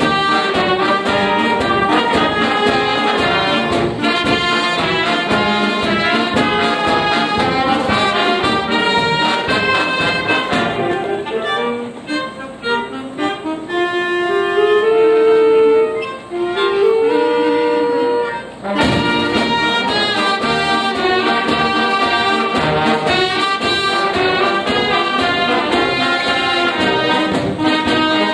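High school concert band of wind instruments playing live in full. Several seconds in, the sound thins to a few quieter melodic lines, and the whole band comes back in together near two-thirds of the way through.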